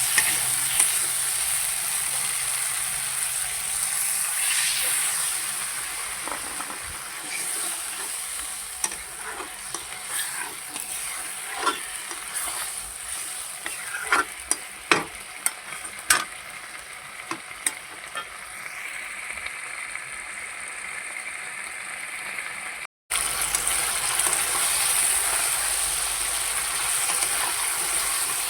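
Kundru (ivy gourd) sabzi sizzling as it fries in oil in a pan, with a steady hiss. A spatula scrapes and clicks against the pan several times in the middle stretch. The hiss breaks off briefly near the end, then resumes louder.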